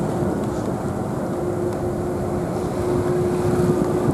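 A motor running steadily: a low rumble with a constant hum that grows a little stronger partway through.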